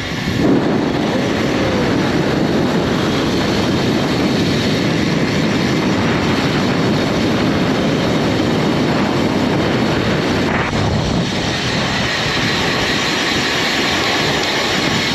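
Steady rushing wind buffeting a bike-mounted action camera's microphone on a fast road-bike descent, mixed with tyre noise on wet asphalt.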